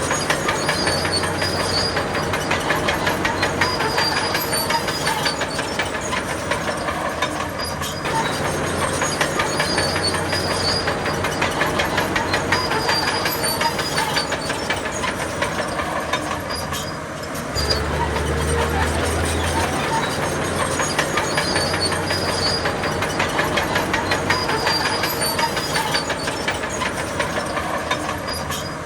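Heavy diesel earthmoving machinery, most likely a crawler bulldozer, running under load with a fast, continuous clatter of steel tracks. The engine's low hum steps up and down several times as the load changes.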